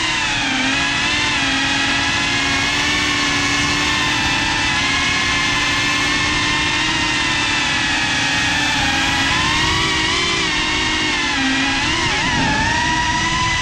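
FPV quadcopter's brushless motors and propellers whining, picked up by the GoPro on board. The pitch dips and climbs with the throttle as the drone manoeuvres, with a quick wobble near the end.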